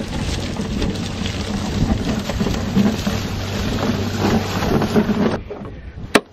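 Steady rushing wind noise on the microphone with a low rumble underneath. It drops away abruptly about five seconds in, and a single sharp click follows just before the end.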